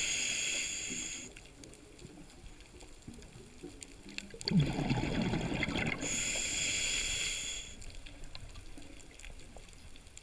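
A scuba diver breathing through a regulator underwater: a hiss of inhaling near the start, a burst of exhaled bubbles about four and a half seconds in, then another inhaling hiss lasting about a second and a half, with quieter pauses between breaths.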